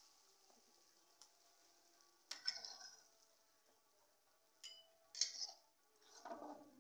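Metal spatula scraping and clinking against a pan while serving a pea curry into a bowl: a few short scrapes, the first about two seconds in and the rest in the second half.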